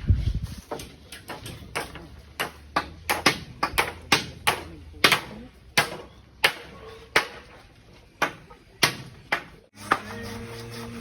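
Hammer blows on a construction site, sharp and irregular at roughly two strikes a second, some with a metallic ping. Near the end the hammering stops abruptly and a steady rasping like sawing begins.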